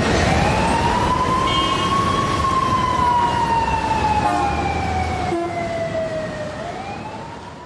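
A siren wailing over a low rumble: one slow rise and fall in pitch, beginning to rise again near the end as the sound fades out.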